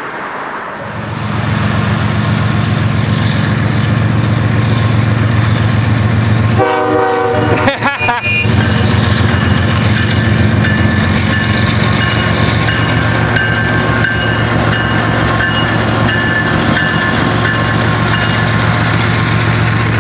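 CSX freight train led by two GE ES44DC 'DC Gevo' diesel locomotives approaching and passing underneath, their four-stroke V12 engines running with a steady low drone that swells about a second in. A short horn blast sounds about seven seconds in.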